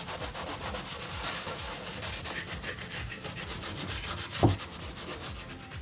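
Microfiber cloth scrubbing the front panel of a Bose Acoustimass 5 bass module cabinet in rapid back-and-forth strokes, working spots off the finish. A brief thump comes about four and a half seconds in.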